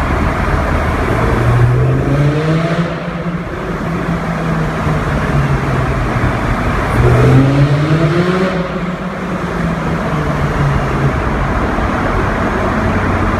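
Lamborghini Gallardo Spyder's V10 engine accelerating hard twice, with the revs climbing about a second in and again about seven seconds in, over loud road noise.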